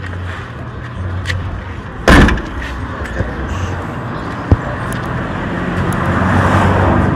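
A car's engine idles with a steady low hum. About two seconds in, the hatchback boot lid of a Toyota Avensis slams shut with one loud bang, and a short sharp click follows a couple of seconds later.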